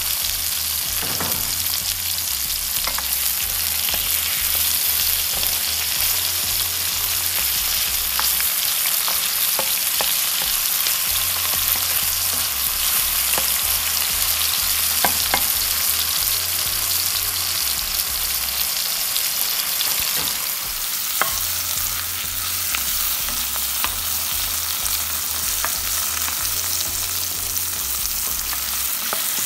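Ginger, onion, garlic and tomato sizzling in hot oil in a pot as they are sautéed, with a spatula now and then clicking and scraping against the pan as it stirs.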